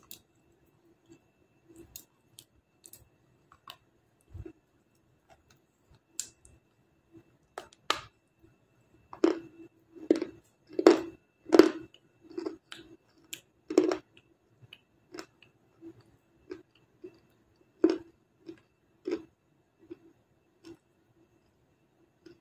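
Close-up chewing and crunching of hard, chalky pieces of edible earth: irregular crisp crunches, a few sparse ones at first, then a loud, dense run in the middle that thins out towards the end.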